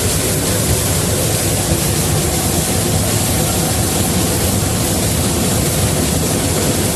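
Steady rush of wind and running noise in the open cab of the steam locomotive Ward Kimball moving at speed, with a low rumble underneath.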